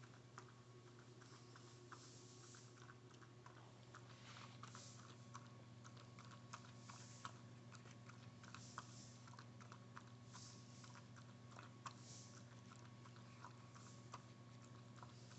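Small poodle-mix dog licking and lapping up foamy milk: faint, irregular wet licks and small clicks, over a low steady hum.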